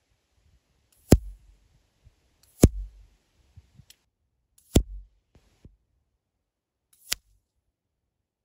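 Pellets from an EDgun Leshiy 2 PCP air rifle striking a paper target, heard close to the target: four sharp cracks one and a half to two seconds apart, each followed by a fainter knock.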